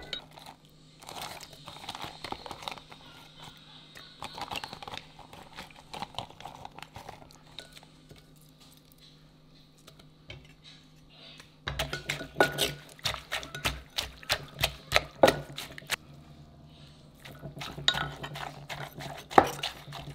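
Wooden pestle knocking in a clay mortar, with a metal spoon scraping and stirring, as chilies, lime and shredded green papaya are pounded and mixed for papaya salad. Knocks come in runs: some in the first few seconds, a quieter stretch in the middle, then a fast, regular run of knocks about two-thirds through and more near the end, over a low steady hum.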